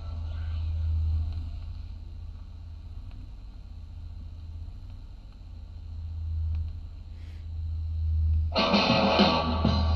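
A 1960s rock LP playing on a turntable: one track fades out, leaving a quiet stretch of groove with a steady low hum, and about eight and a half seconds in the next track starts abruptly with loud distorted electric guitar.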